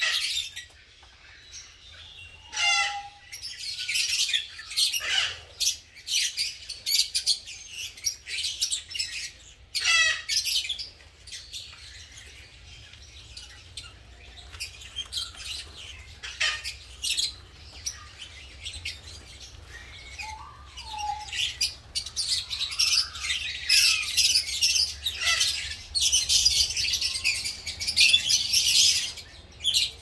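A flock of masked lovebirds (wild-type green) chattering, with many shrill, high chirps and squeaky calls in overlapping bursts. The chatter grows busiest near the end.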